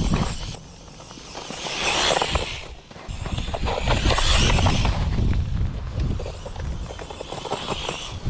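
Radio-controlled car driving over wet, rough ground, with a low rumble and a rush of tyre and spray noise that swells twice, about two and four seconds in.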